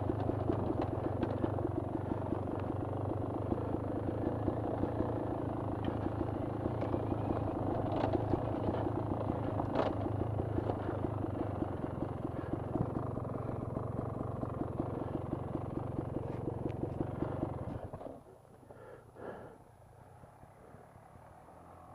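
Dirt bike engine running at low, steady revs with a rapid even pulse and a few sharp knocks, then dropping away suddenly about eighteen seconds in, leaving only a low background.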